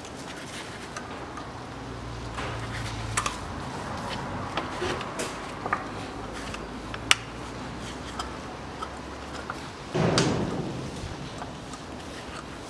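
Sharp metallic clicks and small knocks of pliers working a spring hose clamp onto a rubber hose at a CVT filter housing, with a louder brief scraping noise about ten seconds in and a faint low hum underneath for a few seconds.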